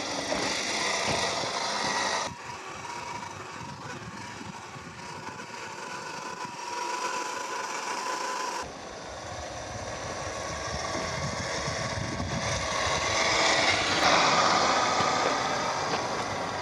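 Radio-controlled Traxxas TRX-4 scale crawler running off-road, with the whine of its brushed 550 21-turn electric motor and gearbox over the noise of the drivetrain and tires. The sound changes abruptly about 2 seconds in and again about 9 seconds in.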